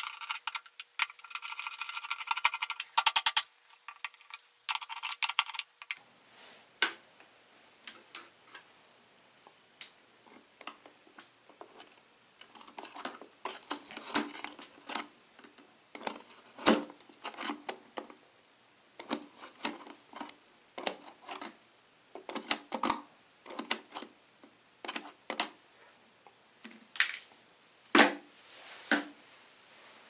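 Irregular clicks, taps and small knocks of a screwdriver and hands taking apart the plastic base of an electric kettle. For the first six seconds a steady high-pitched tone is also heard, with a quick rattle of clicks about three seconds in.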